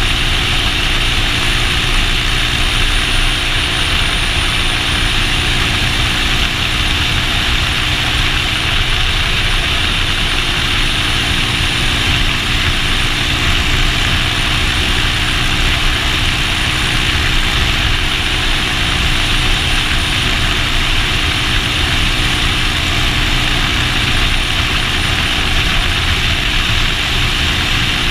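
Motorcycle engine running at a steady cruise, with no change in engine speed, under heavy wind rush on the action camera's microphone.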